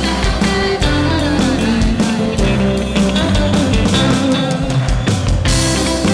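Live rock band music played loud, with a steady drum beat, bass and guitar.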